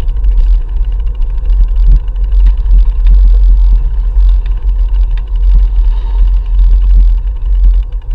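Wind buffeting a GoPro camera's microphone on a moving bicycle: a loud, steady low rumble. A scatter of light, irregular clicks and knocks runs through it as the tyres roll over the planks of a wooden boardwalk.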